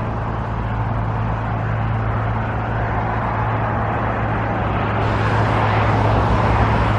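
Steady road traffic noise with a constant low hum, growing gradually louder.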